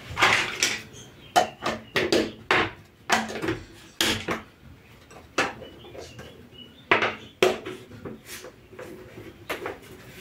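Dishes and kitchenware being handled on a kitchen counter: a string of irregular knocks and clinks, some ringing briefly.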